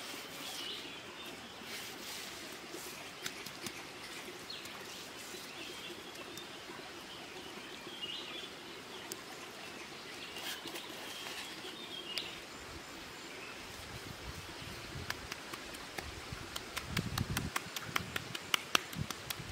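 Birds chirping over a steady background rush of a forest stream. In the last few seconds, a quick run of sharp clicks and a few soft thumps as the chili-rubbed fish is handled on the rock.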